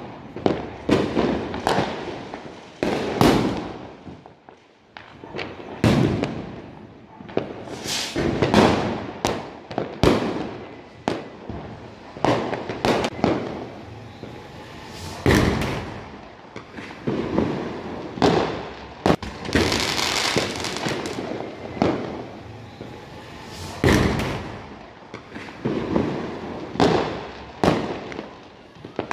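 Many fireworks and firecrackers going off together: a dense, unbroken string of sharp bangs and pops, near and far, many of them echoing. About twenty seconds in comes a longer hissing crackle.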